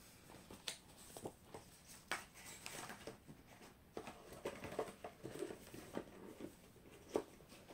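Soft rustling and scattered light knocks of books and paper being handled.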